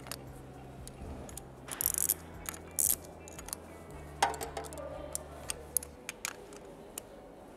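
Steel spanner clicking and clinking against the thermostat housing bolts as the housing is refitted to the engine. There are scattered light clicks, two short raspy scrapes about two and three seconds in, and a ringing metallic clink just after four seconds, over low background music.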